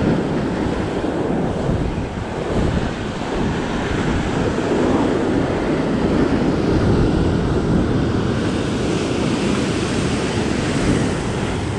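Ocean surf surging and washing against a rock ledge in a steady rush, mixed with wind buffeting the microphone.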